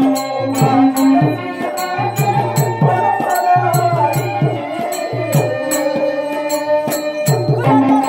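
Live Indian stage-drama accompaniment: a hand drum played in quick runs of strokes, sharp clicks keeping time, and a sustained, wavering melody over them.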